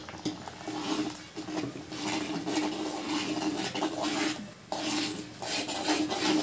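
Spoon scraping and stirring in a cooking pot as ground coconut is worked into thick moong dal payasa: a run of rough scraping strokes with two short breaks.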